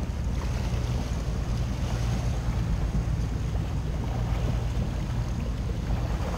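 Boat engine running low and steady at slow speed, with wind on the microphone and water moving around the hull.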